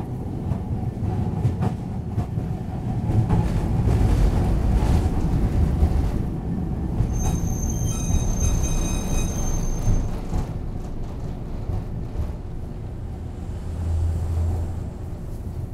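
Nagasaki Electric Tramway streetcar running between stops, heard from inside the car: a steady low rumble of motors and wheels on the rails, louder in the middle. A high metallic squeal from the wheels rings out for about three seconds midway.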